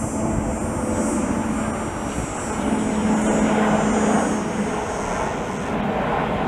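Wide-body jet airliner's turbofan engines running loud and close, a steady rumble with a high engine whine on top that cuts off suddenly near the end.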